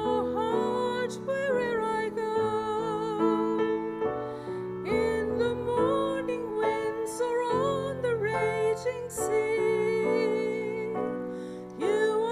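Slow, gentle piano music with a higher melody line held over it, its long notes wavering in pitch.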